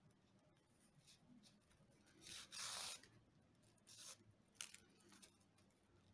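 Paper-rope cord being drawn through crocheted paper-rope stitches with a needle: faint rasping rustles, the longest about two and a half seconds in, a shorter one about a second later, and a light tick just after it.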